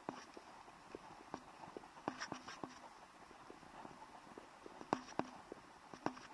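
Scattered sharp clicks and knocks at uneven intervals, some with a brief ringing tone, over a faint hiss.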